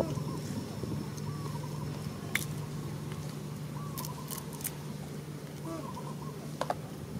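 A macaque cracking peanut shells with its teeth and chewing: a few sharp clicks, one a couple of seconds in, a quick cluster around four seconds and one more near the end, over a steady low hum.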